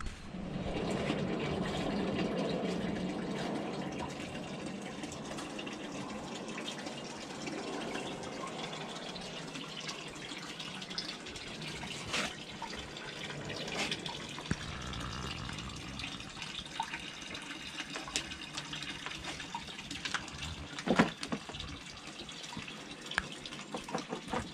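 Water running steadily from a spring's pipe spout into a stone basin, a little louder in the first few seconds. Scattered short clicks and knocks sound over it, the sharpest about 21 seconds in.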